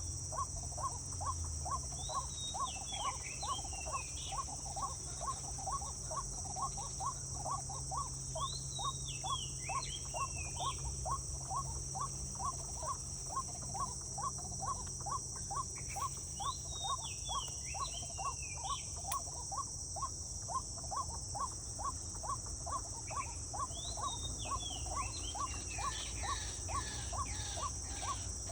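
Outdoor wildlife ambience: a steady high insect drone under a regular pulsing call about two to three times a second. A bird sings a short descending phrase four times, and a quick run of repeated notes comes near the end.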